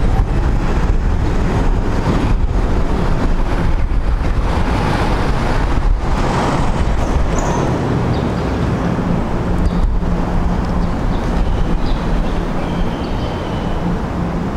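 Loud, steady rumbling background noise with no clear single source, with a faint high-pitched tone briefly near the end.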